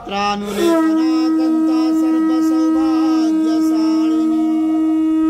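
Conch shell (shankha) blown in one long, steady note, starting just under a second in and held for about five seconds after a brief wavering start. A weaker, wavering tone sounds beneath it.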